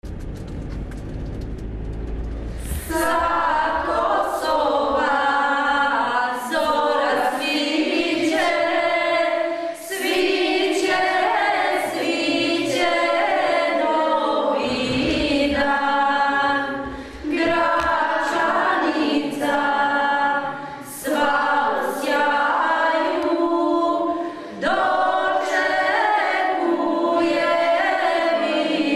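A low rumble, then from about three seconds in a group of children and women singing together unaccompanied, phrase after phrase with short breaks for breath.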